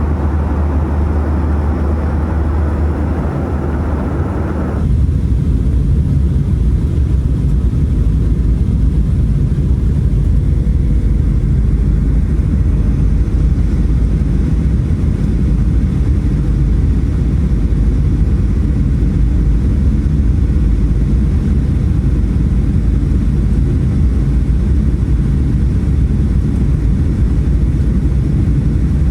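Steady cabin noise of a Boeing 737 airliner in flight. About five seconds in, it gives way abruptly to a louder, deeper rumble as the plane lands.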